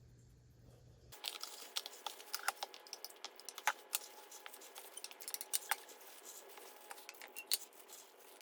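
Irregular small clicks and crackles, several a second, starting about a second in after a low hum cuts off.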